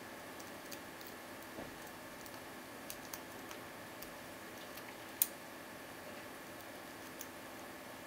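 Light, irregular metallic clicks and ticks of a lock pick and tension wrench working the pins of a five-pin Vachette Ajax 40 mm padlock with anti-pick pins, with one louder click about five seconds in, over a faint steady hum.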